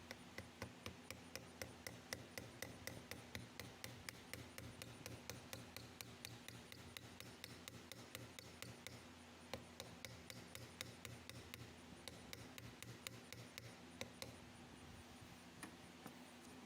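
Hand tool working on a small pocket knife: a fast, even run of light clicking strokes, about four a second, that slows to a few scattered clicks near the end.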